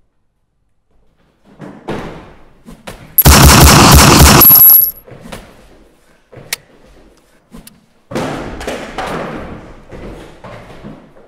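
Action-film combat sound effects: a few thuds, then a very loud blast lasting about a second and a half. A few sharp clicks and knocks follow, and then a second heavy impact that dies away slowly.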